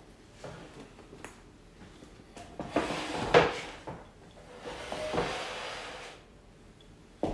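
Handling noises: a few light knocks and clicks, then two longer stretches of rustling about three and five seconds in, and a sharp knock at the very end.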